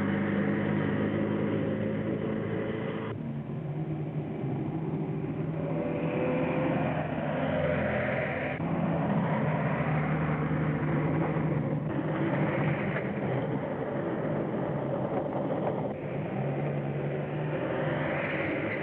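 Engine of a vintage open car running steadily at speed, a droning hum with road noise, on a narrow, hissy old film soundtrack. The pitch of the hum shifts several times, about three, eight, twelve and sixteen seconds in.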